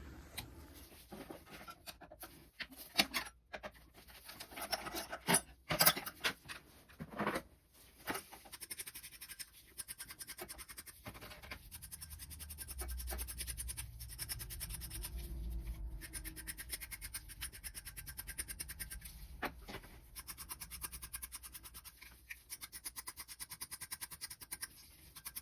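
Hand work on an oil burner's electrode and nozzle assembly as the electrodes are taken off: scattered clinks and knocks of metal tools for the first several seconds, then a fast, even scratching.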